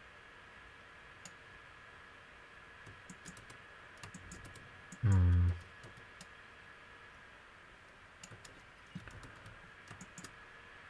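Scattered computer mouse and keyboard clicks, some single and some in quick runs, over a faint steady whine. About five seconds in, a man makes a short wordless 'mm', the loudest sound.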